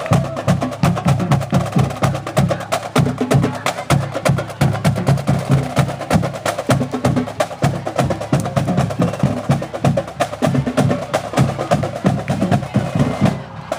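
Marching band drumline playing a fast, steady drum cadence, with pitched low drum strokes under rapid sharp hits; it stops suddenly near the end.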